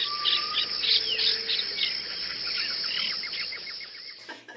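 Birds chirping and whistling, with high calls that slide down in pitch, then a quick, even run of chirps; it cuts off suddenly near the end.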